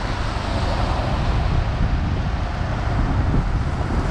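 Heavy construction machinery's diesel engine running steadily, a low rumble with a constant hiss over it.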